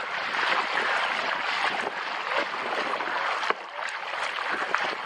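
Water splashing and trickling around a kayak being paddled, with a few light knocks.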